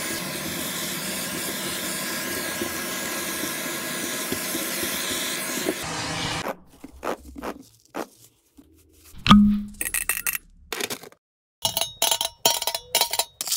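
Vacuum cleaner running steadily with a sock over its nozzle, sucking up screws, then switching off about six and a half seconds in. After that, loose metal screws clink as they drop into a plastic tub, with one louder knock partway through and a quick run of clinks near the end.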